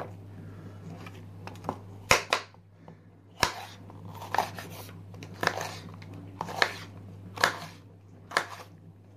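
Kitchen knife slicing a yellow bell pepper on a cutting board: a crisp cut ending in a knock of the blade on the board, about once a second, seven strokes.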